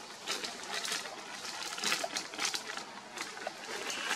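Dry fallen leaves crackling and rustling in quick, irregular clicks.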